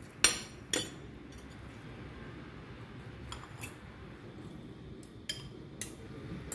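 A metal spoon and fork clinking against a ceramic bowl while scooping rice: about six short, sharp clinks in pairs, the loudest two near the start.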